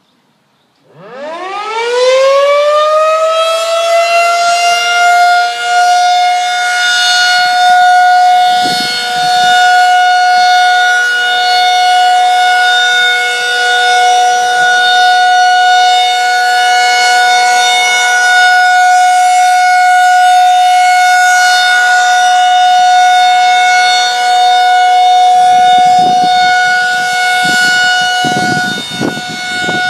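Federal Signal 2001-SRN rotating civil defense siren winding up from silence about a second in, its pitch rising fast and then holding one steady, loud tone for its monthly test. The loudness swells and dips slightly as the rotating head sweeps round.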